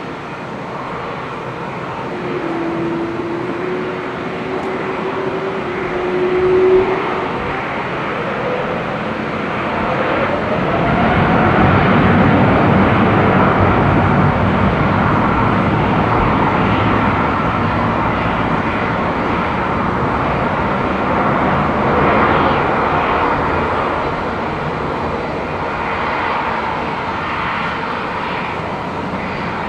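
Airbus A350-900's Rolls-Royce Trent XWB turbofans spooling up for takeoff: a whine climbs in pitch over the first ten or so seconds as the noise builds, then a steady, loud jet roar at takeoff thrust that eases a little near the end.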